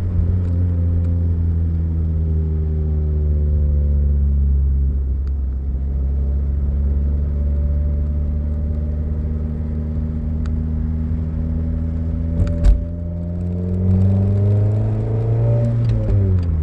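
A Toyota Corolla's four-cylinder engine and road noise heard from inside the car while driving, with a steady drone that drifts in pitch. Near the end the engine note rises under acceleration, then drops suddenly. A single thump comes about two-thirds of the way through.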